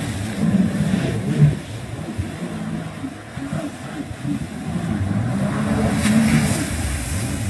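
Jet ski engines revving up and down as they circle, with a rush of water spray about six seconds in.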